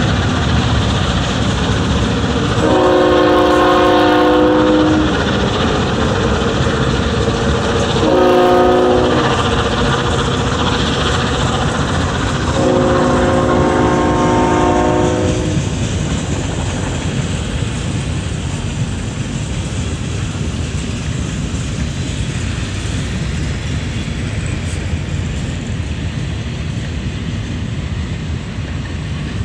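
Freight train passing: the diesel locomotive's multi-tone horn sounds a long blast, a short one and a final long one, the end of the grade-crossing signal. Under it the freight cars rumble and clatter steadily, and only the car noise goes on after about sixteen seconds.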